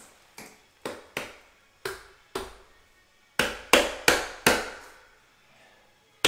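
Plastic tile-leveling wedges being pushed tight into their clips: a series of sharp clicking taps, spaced out at first, then four louder ones in quick succession about halfway through, and one more at the end.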